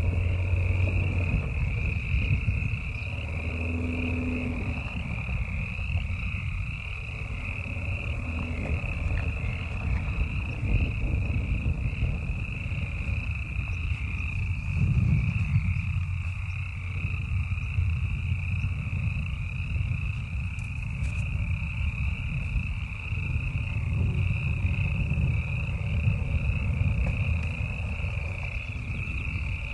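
Toyota Land Cruiser FZJ80's supercharged straight-six running at low revs as it works slowly along a snow-banked dirt track, a low rumble that swells briefly about halfway through. Over it runs a steady, high-pitched trilling.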